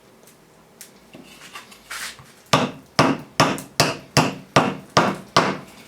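Hammering a carved birch-wood peg through a salmon fillet into a wooden plank: a few light taps, then from about halfway a steady run of about nine sharp wooden knocks, some two and a half a second.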